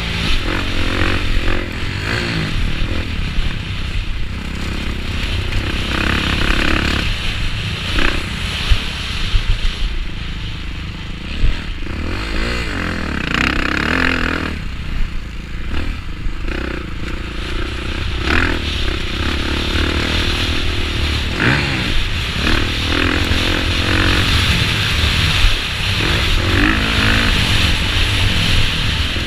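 Motocross bike engine at race pace, heard from the rider's helmet camera: the revs climb and drop over and over with throttle and gear changes. Wind rushes over the microphone throughout, with a few short knocks from the bike over bumps and landings.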